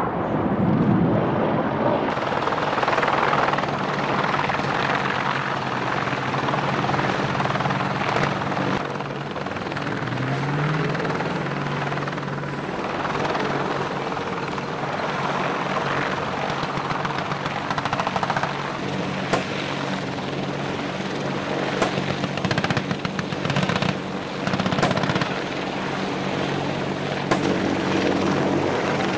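AH-64 Apache attack helicopters flying overhead: a steady rotor and engine drone, with a short rise in pitch about ten seconds in. In the second half a scatter of sharp cracks sounds over the drone.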